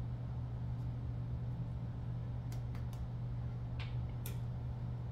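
A steady low room hum, with a few light clicks about halfway through and near the end as a metal measuring spoon taps against a spice jar while ground cinnamon is spooned out.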